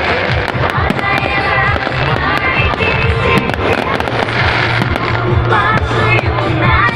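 Fireworks bursting and crackling in rapid, irregular succession, with music playing underneath.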